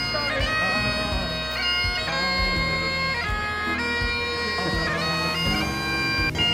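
Great Highland bagpipes played solo: a steady drone under a chanter melody that steps quickly from note to note.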